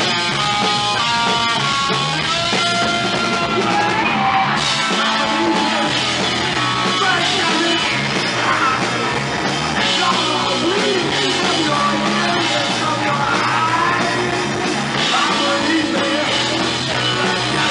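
Live rock band playing loudly: electric guitar, bass guitar and drum kit.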